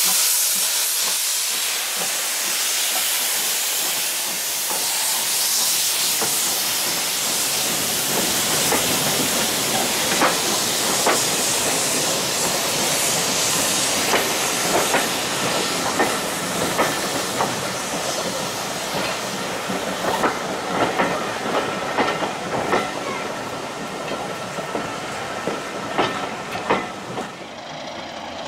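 Steam train: a loud hiss of escaping steam at first, then a run of irregular clicks and knocks as the wheels roll over the rail joints, with a faint thin whine in the later part.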